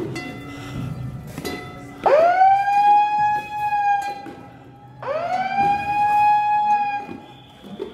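Two long horn blasts, each sliding quickly up in pitch and then holding one note for about two seconds. The second follows about three seconds after the first.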